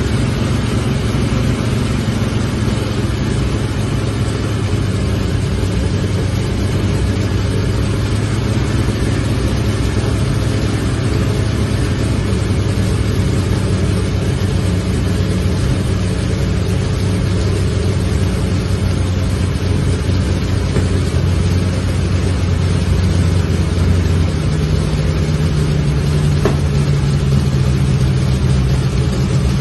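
Pratt & Whitney R-1830 Twin Wasp, a twin-row air-cooled radial aircraft engine, running steadily with its propeller turning. It speeds up slightly near the end.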